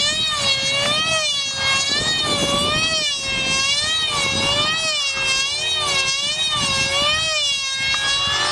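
Radio-controlled model airplane's motor whining high overhead, its pitch rising and falling about once a second as the plane flies.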